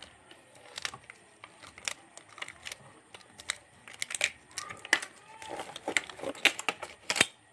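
Thin disposable examination gloves rustling and snapping as a glove is pulled onto the hand and worked over the fingers: irregular crinkly crackles, several a second.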